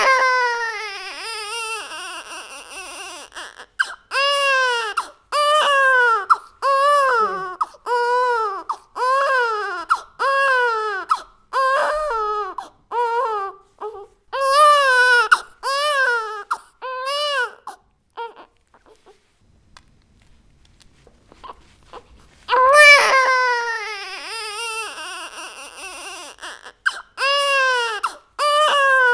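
Baby crying hard in repeated wails, each one rising and falling in pitch, about one a second. The crying stops for about four seconds past the middle, then starts again loudly.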